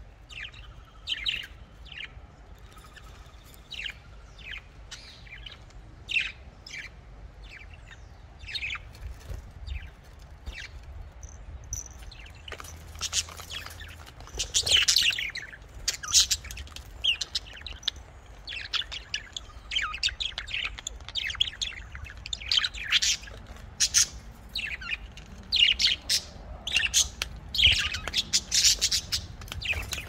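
Pet budgerigars chirping and chattering in short, quick calls, sparse at first and then busier and louder from about halfway through.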